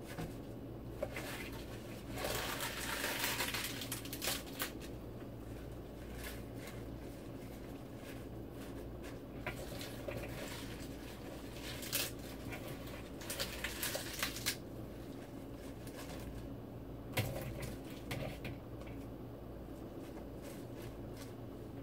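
Washed escarole and Swiss chard leaves being handled and piled into a pot, rustling and crackling in several short bursts, with a steady low hum underneath.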